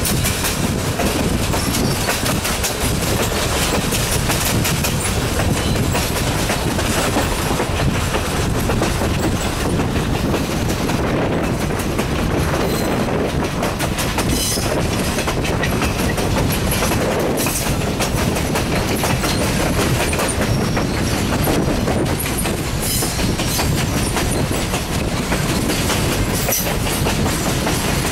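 Passenger train coaches' steel wheels rolling over the rails: a steady rumble with a fast clickety-clack of wheels over rail joints.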